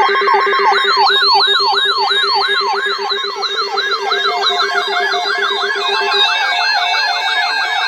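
Electronic siren sounding in repeated falling sweeps, about two a second, over a steady low tone. Around four seconds in the sweeps speed up to about four a second and overlap, and the low tone cuts off about six seconds in.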